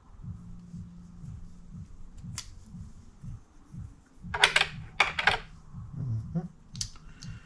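Scattered sharp clicks and clatter of hard tools and bits being handled on a workbench, loudest in a quick cluster about halfway through, over a low steady hum.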